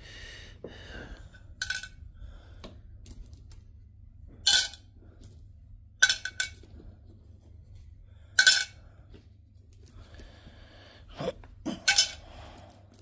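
Small metal parts clinking as they are handled and set down: about five sharp, ringing clinks spaced a second or more apart.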